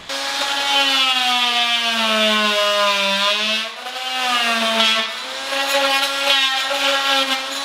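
ShopSeries oscillating multi-tool with a flush-cut blade undercutting a wooden door casing, running as a loud buzzing whine. The pitch wavers and sags as the blade loads in the wood, and the level dips briefly twice, a little before and a little after halfway.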